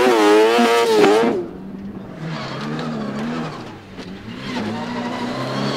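A high-revving crosskart engine on the throttle, its pitch wavering up and down. About a second and a half in, it gives way abruptly to a quieter, deeper autocross touring car engine revving up and down as the car slides on dirt.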